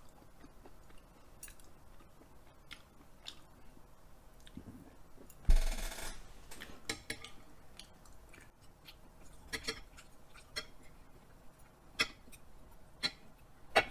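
Thin metal chopsticks clicking against each other and against a stone serving plate as salmon sashimi is picked up and chewed, with a series of sharp clicks through the second half. One louder bump and rustle comes about five and a half seconds in.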